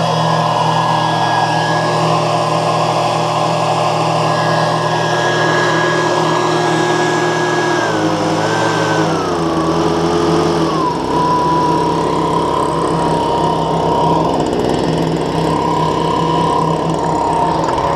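Petrol leaf blower feeding start air into a pulse jet engine. It runs at full throttle, then is throttled back about eight seconds in, and its fan whine falls in steps to a lower steady whine.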